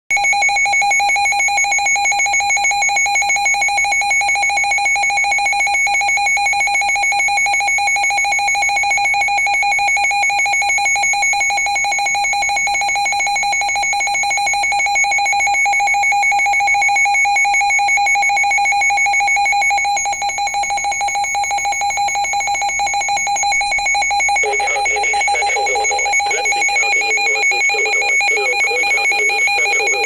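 NOAA weather radio's alert alarm going off for a flash flood warning: a loud, steady, rapidly pulsing beep at two fixed pitches. About twenty-four seconds in, a lower, uneven sound joins it.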